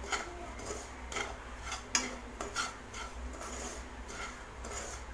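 A spoon stirring and scraping semolina and grated coconut as they roast in ghee in a pan, with irregular scrapes and taps against the pan, the sharpest about two seconds in.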